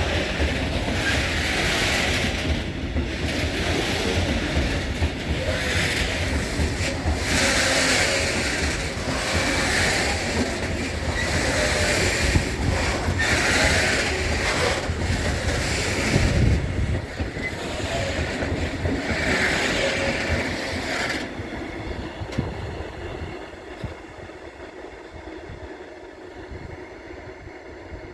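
Freight train of Eas open wagons rolling past: a steady rumble with bursts of wheel-on-rail clatter every second or two. About 21 seconds in the noise drops away to a much quieter hiss as the train passes.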